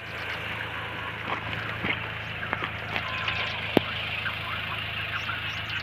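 Mahindra XUV500's diesel engine idling in a steady low hum, with scattered crunching clicks of footsteps on loose stones and a few short bird chirps.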